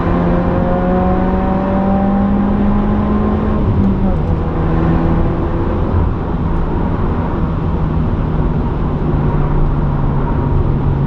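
2015 Subaru WRX's turbocharged 2.0-litre flat-four, breathing through a muffler delete, pulling hard under acceleration: the engine note climbs for about four seconds, drops at an upshift, then settles into a steady drone.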